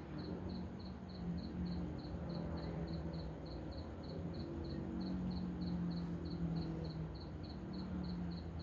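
Crickets chirping in a steady rhythm, about three chirps a second, over the low drone of distant vehicle engines.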